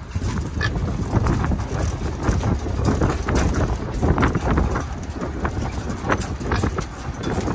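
Open livestock trailer rumbling and rattling as it is towed along a rough road, with irregular knocks and clatter from its metal panels and mesh sides.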